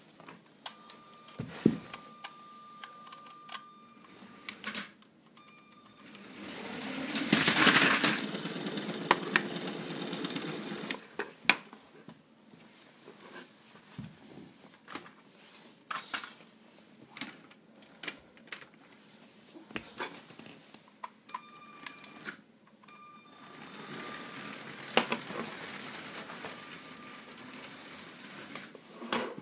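Motorised Lego train running on plastic track: its motor whirs, loudest about seven seconds in and again near the end as it passes close. Scattered clicks and knocks of plastic on plastic come as it strikes the Lego vehicles on the crossing.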